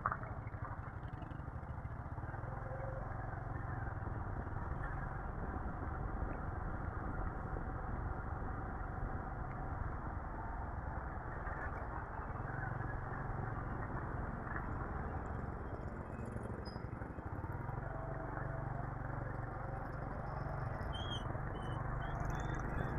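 Motorcycle running steadily while being ridden along a road, engine and road noise making a continuous low hum.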